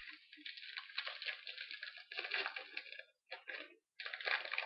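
Crinkling and rustling of trading cards and foil pack wrappers being handled, an irregular run of small crackles that stops briefly twice near the end.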